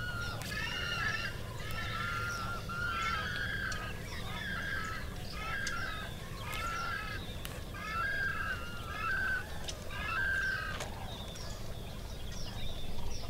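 Birds calling: a run of repeated pitched calls, about one a second, that thin out near the end. Under them runs a low, steady rumble.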